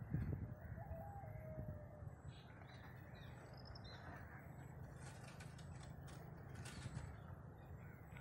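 Faint outdoor ambience: a steady low rumble with a few faint distant bird calls and chirps, after a soft thump at the very start.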